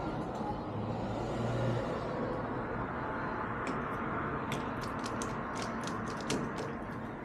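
Steady background traffic rumble, then from about halfway a run of small sharp metal clicks as the flush bolt hardware is worked by hand.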